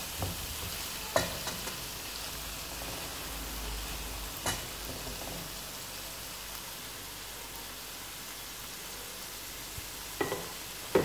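Onions and bell peppers sizzling steadily in oil in a nonstick frying pan while a wooden spoon stirs them, with a few sharp knocks of the spoon against the pan.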